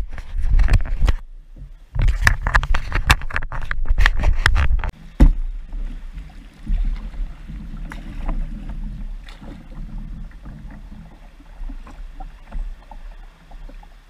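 Sea kayak moving through the water: splashing and water lapping against the hull. Loud crackling knocks and rumble on the kayak-mounted camera's microphone over the first five seconds end with a sharp knock, after which only the quieter wash of water remains.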